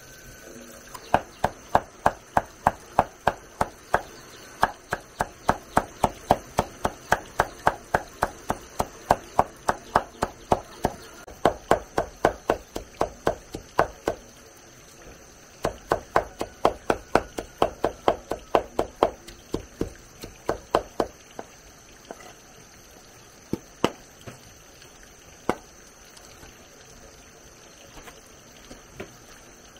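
Quick, even knocks of a hand tool striking a hard surface, about three a second, in two long runs with a short break, then a few single knocks near the end.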